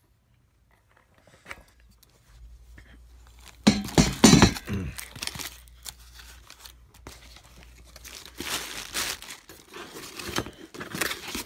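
Cardboard packaging being handled, pulled and torn: irregular rustling and scraping, with a few loud cardboard scrapes and knocks about four seconds in.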